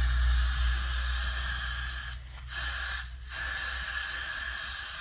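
Aerosol can of Got2B Glued Freezing Spray hissing in long sprays onto hair, stopping briefly twice, about two and three seconds in. A low rumble runs underneath and fades.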